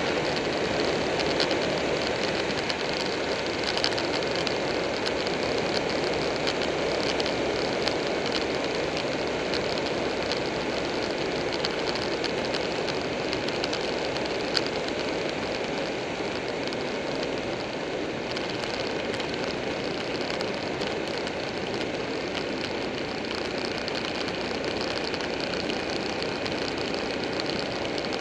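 Steady wind rush on the microphone of a Buell 1125R riding at road speed, mixed with the constant drone of its V-twin engine. A single sharp tick sounds about halfway through.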